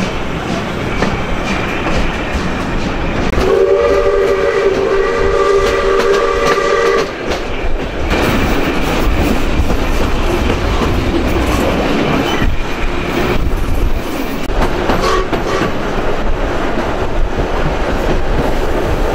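Steam-hauled heritage train running, with steady rail clicks. About three seconds in, the steam locomotive's whistle sounds a held chord of several notes for roughly three and a half seconds, with a fainter short toot later on.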